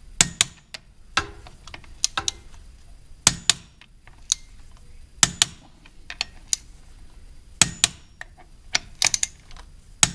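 Torque wrench clicking as bolts are tightened down: sharp metallic clicks, often in pairs, repeating every second or two.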